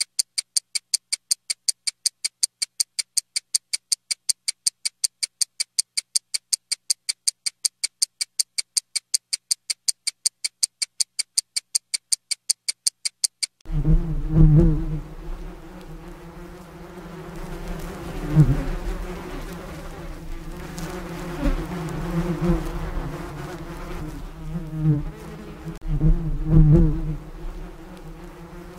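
A rapid, even ticking of a countdown timer sound effect, about four ticks a second, stops suddenly about fourteen seconds in. Bees buzzing follow, a low hum that swells and fades.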